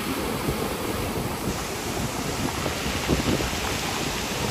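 Surf breaking and washing up a steep beach of rounded pebbles, a steady rushing wash of water over stones, with wind rumbling on the microphone.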